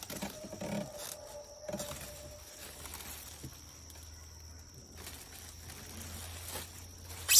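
Soft rustling of plastic wrapping and light knocks as a plastic rolling cooler body is lifted and tipped out of its packaging. A thin steady high tone runs through the first few seconds, and a low hum comes in about halfway through.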